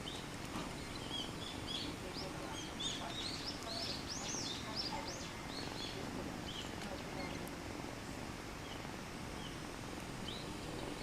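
Small birds chirping: many short high chirps overlapping, busiest in the first half and thinning out later, over a steady outdoor background hiss.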